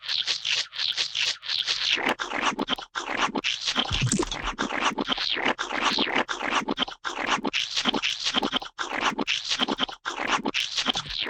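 A rapid string of gooey, wet splat sound effects, several short splats a second one after another.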